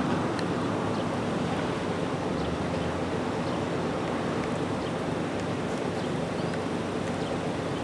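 Steady wind rushing over the microphone, with a low steady hum underneath.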